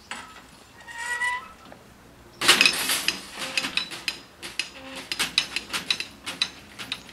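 Level-crossing barrier booms lowering: a short squeal about a second in, then a loud metallic clatter as the booms come down onto their rests, followed by irregular rattling of their hanging lattice skirts that dies away.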